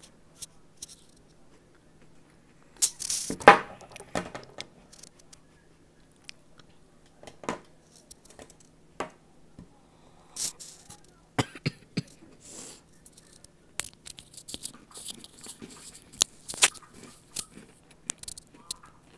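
Biting into a frozen Thin Mint cookie, with one loud crunch about three seconds in, then chewing with scattered crisp crunches and clicks.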